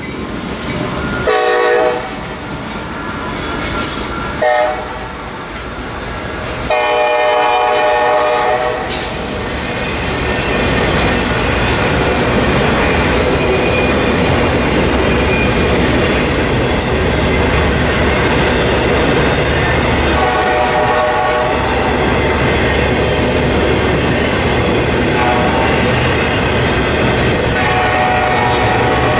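Diesel locomotive horn sounding several blasts, the longest about seven seconds in, as a train comes by and passes with a steady rumble and wheels clattering on the rails. Two more horn blasts sound over the passing train later on.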